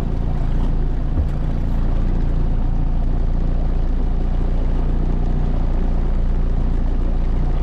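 Motorboat engine running steadily, heard from aboard as a constant low drone, with a brief low bump about a second in.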